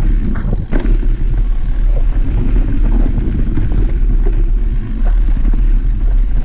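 Action-camera audio of a mountain bike riding fast down a dirt trail: heavy wind rumble on the microphone, with the tyres rolling over dirt and scattered sharp clicks and rattles from the bike.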